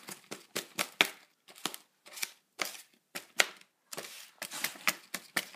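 Kitchen knife chopping charred, charcoaled carrots on a cardboard tray: a string of sharp, irregular chops, about two to three a second.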